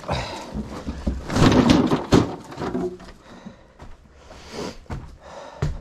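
Scraping and clattering of household junk being shifted, with scattered knocks, loudest about a second and a half in.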